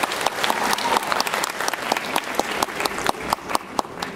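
Applause: many hands clapping, the claps thinning out near the end.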